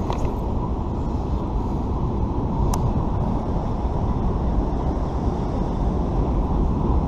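Steady low rush of a fast-flowing river around a wading angler, with a single sharp click about two and a half seconds in.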